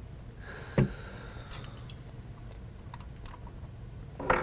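A few sharp clicks and knocks of a scoped rifle being handled and lifted off its sandbag rest: one louder knock about a second in, a few faint ticks after it, and another knock near the end.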